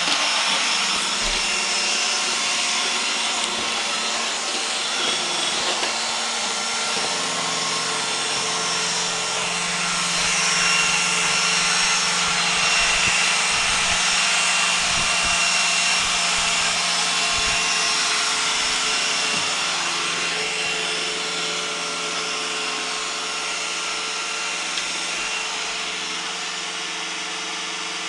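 iRobot Roomba 980 robot vacuum running, a steady whir with several high whining tones from its motors and brushes; it grows a little louder about a third of the way in and eases off again later.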